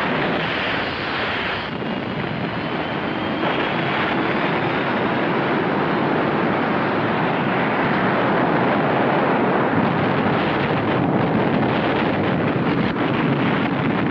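Loud, continuous rushing noise of a science-fiction sound effect: a spacecraft's rocket blast mixed with the upheaval of smoke and debris, with a faint rising whine about a second in.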